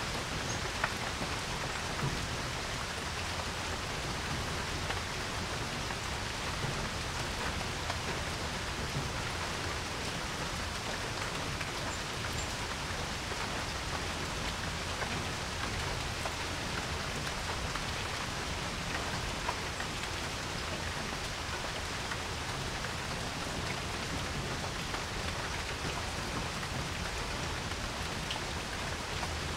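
Steady rain falling on a porch, an even hiss with scattered individual drop ticks.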